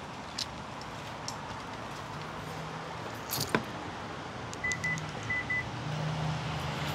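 A sharp click as an SUV's rear passenger door is unlatched and swung open, then four short high electronic beeps in two pairs, over steady outdoor background noise.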